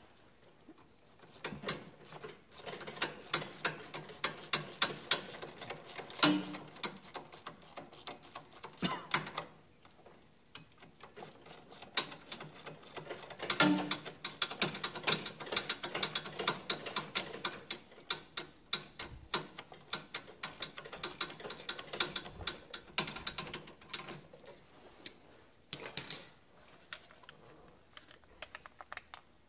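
Socket ratchet wrench clicking rapidly as bolts on a snowblower's carburetor bracket are run in and tightened. It comes in two long runs of quick clicks with a pause between them, and a short burst near the end.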